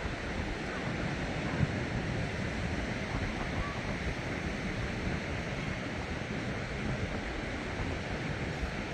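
Steady sea surf washing on the beach, with wind buffeting the microphone.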